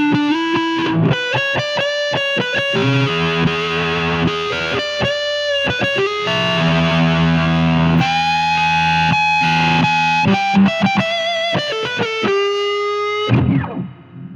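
Electric guitar played through a Cardian C6H8O6 'Vitamin C' fuzz pedal, a FET-and-transistor fuzz. It plays a distorted lead line of quick runs and long sustained notes, then is cut off about 13 seconds in and rings out.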